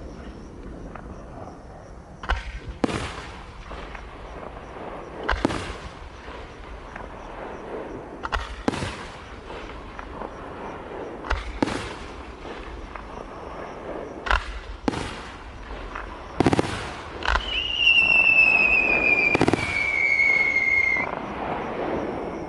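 Fireworks going off in a display: about a dozen sharp bangs, singly and in pairs, a few seconds apart. Near the end a shrill whistle falls slowly in pitch for about three seconds among the bangs.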